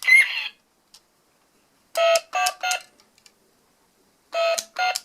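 A child's phone plays a short electronic three-note chime twice, about two seconds in and again near the end. At the very start a cockatiel gives a brief whistled call.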